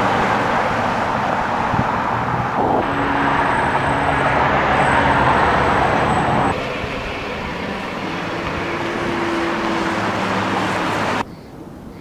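Hail and heavy rain falling and hitting, a loud steady noise. It changes abruptly in strength about a third of the way in, again just past halfway, and drops away sharply near the end.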